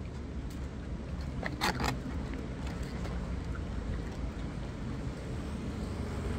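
Steady low rumble of nearby road traffic, with a quick cluster of short clicks about a second and a half in.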